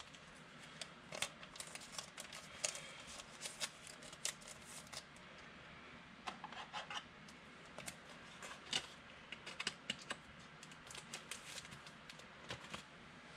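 Trading cards and card packs being handled: faint, irregular clicks, flicks and scratchy rustles as cards are slid, flipped and stacked.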